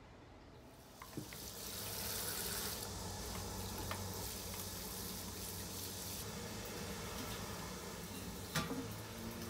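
Water spraying from a hose spray nozzle onto potted plants and their soil: a steady hiss that starts about a second in. A sharp click comes near the end.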